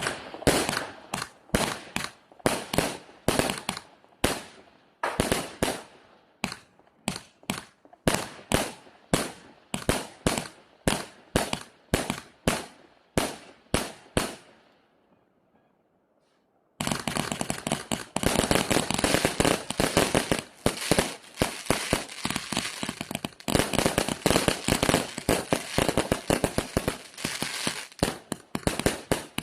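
A 200-shot assorted fireworks cake firing: single shots at about two a second for roughly fourteen seconds, dying away into a short lull, then from about seventeen seconds a dense, rapid barrage of shots.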